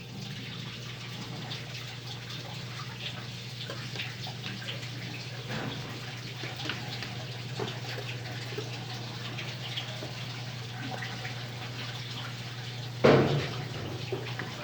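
Colormaq LCA12 top-loading washing machine running with water moving through it, over a steady low hum, with one loud knock near the end.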